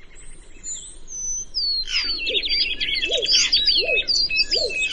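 Several wild birds calling at once: high whistled slurs at first, then a dense run of quick chirps from about two seconds in, with a lower call repeated roughly every three-quarters of a second.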